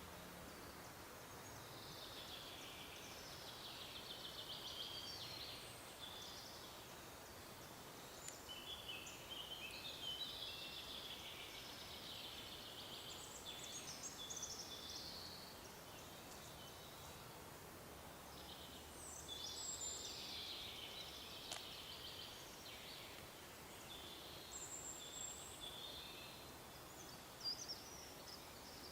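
Birds singing in a forest, fairly faintly: several runs of quick, warbling song phrases with short pauses between them, over a soft steady background hiss.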